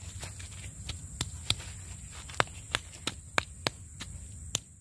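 Wooden pestle pounding chilies and shallots in a stone mortar (Indonesian ulekan and cobek): a string of sharp, irregular knocks, roughly two or three a second.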